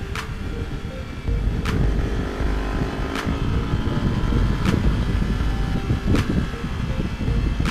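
Motorcycle engine running under way, recorded by an onboard camera, with wind rumbling on the microphone; the engine note rises and falls a little with the throttle around the middle. A sharp tick recurs about every second and a half.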